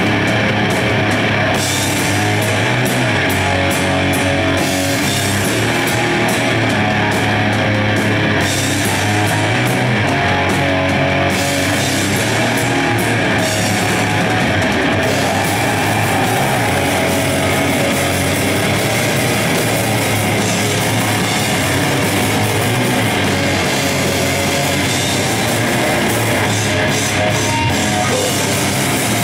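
Live death metal band playing at full volume: heavily distorted electric guitar and bass guitar over a drum kit with fast, busy cymbal and drum hits, one dense, unbroken wall of sound.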